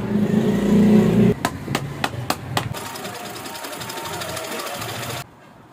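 A low steady hum, then a quick run of about six sharp knocks. Then an industrial sewing machine runs steadily while stitching a leather chappal sole, and cuts off abruptly near the end.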